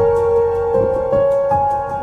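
Background music: a slow new-age melody of held notes, each changing to the next about every half second.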